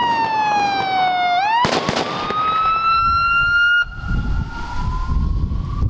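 Emergency-vehicle siren wailing, its pitch sliding slowly down and then back up, with a short cluster of sharp bangs about a second and a half in. Shortly before four seconds the sound drops suddenly, leaving a fainter siren wail over a low rumble.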